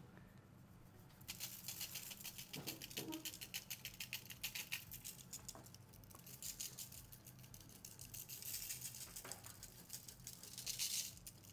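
Garlic salt being shaken from a plastic shaker bottle onto raw salmon fillets, a fast rattling patter of shakes. It starts about a second in and runs on with brief pauses.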